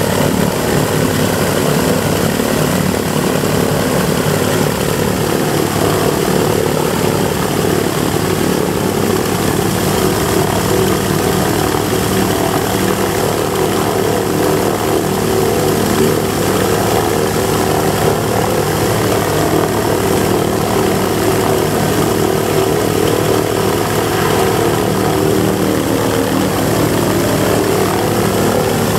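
B-25 Mitchell's Wright R-2600 twin-row radial engines idling on the ground with a steady, loud drone, as one engine is shut down and its propeller winds down to a stop while the other keeps idling.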